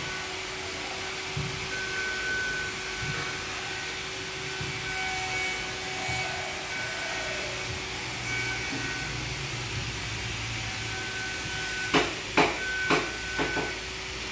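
A steady whirring hiss throughout, then four sharp knocks in quick succession near the end.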